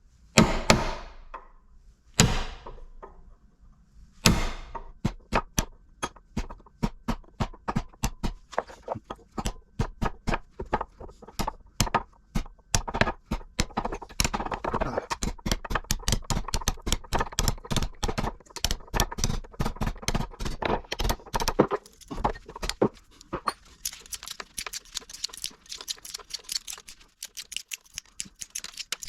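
Hammer blows on small electric motor parts, knocking the copper windings out: three heavy ringing strikes, then fast, steady hammering at about three blows a second that turns lighter and more metallic near the end.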